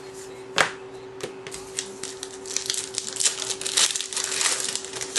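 Plastic wrapper of a hockey card pack being torn open and crinkled: a sharp snap about half a second in, then dense crinkling for several seconds. A faint steady hum underneath.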